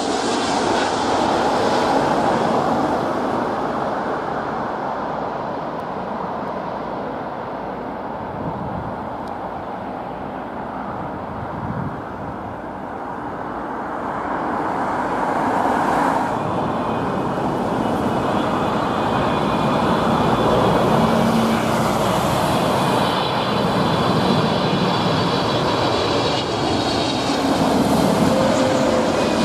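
Wide-body jet airliners on final approach: a steady engine noise that eases off around the middle and swells again, with a faint high engine whine in the second half.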